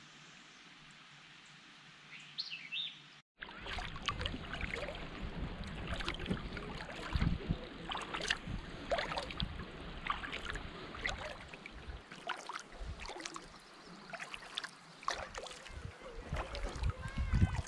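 Kayak paddling: irregular splashes and drips of the paddle in the water over a fluctuating low rumble. A short bird chirp sounds over a quiet hiss before the paddling starts, and a bird chirps again near the end.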